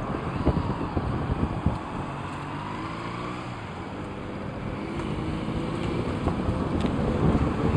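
Road traffic heard from a moving car: engine and tyre noise of the car and a motorcycle riding close behind, growing louder over the last few seconds.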